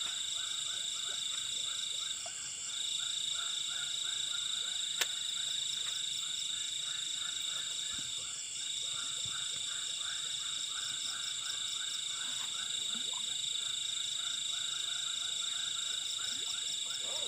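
Night chorus of frogs calling in a fast, repeating pulse over a steady high-pitched insect whine. A single sharp click about five seconds in.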